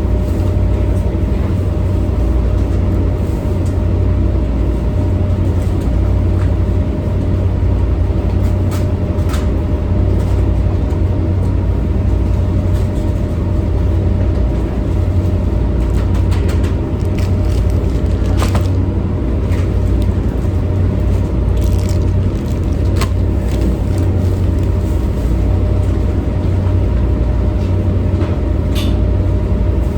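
Steady low rumble of a towboat's diesel machinery running, with a constant hum and a few light clicks and knocks scattered through.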